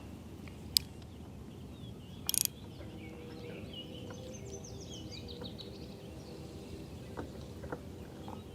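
Outdoor ambience with birds chirping over a steady low hum, broken by a sharp click about a second in and a short rattle a little after two seconds.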